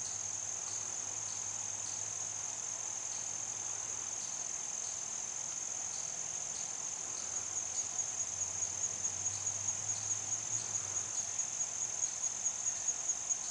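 Crickets or other night insects trilling steadily at a high pitch, joined about halfway through by a louder rhythmic chirping at about four pulses a second.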